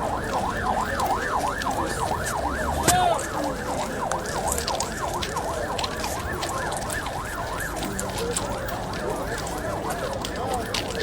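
Ambulance siren in a fast yelping wail, rising and falling about three times a second without a break. A single sharp knock comes about three seconds in and is the loudest sound.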